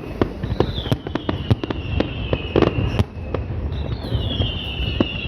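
Fireworks display: rapid sharp bangs and crackles over a low rumble, with two long high whistles sliding down in pitch, the first starting about half a second in and the second near four seconds in.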